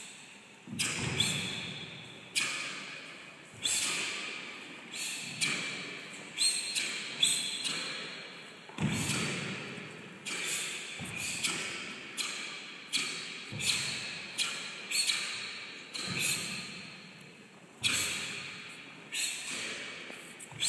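Two Taekwon-Do students performing patterns: sharp snaps of their uniforms and quick exhalations on each technique, about one every second, each with a short echo off the hall's walls.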